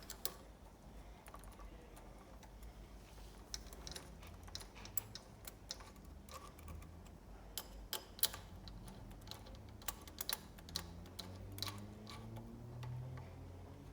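Faint, irregular light clicks and taps of a hand tool and small metal parts as the cap screws holding the valve clamp on a dosing pump head are tightened, over a faint low hum that rises a little near the end.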